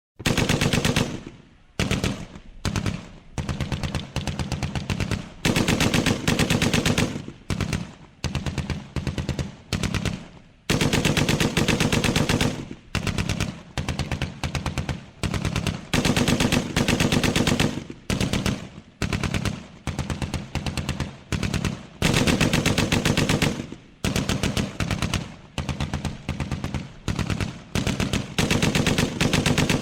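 Automatic gunfire: repeated bursts of rapid machine-gun fire, from short half-second strings to longer runs of about two seconds, with brief pauses between bursts.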